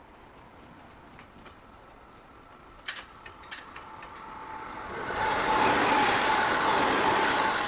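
A JR West 281 series 'Haruka' limited express electric train passing close by, its wheels and motors rising to a loud rush with a steady whine about five seconds in. A few sharp clicks come just before, about three seconds in.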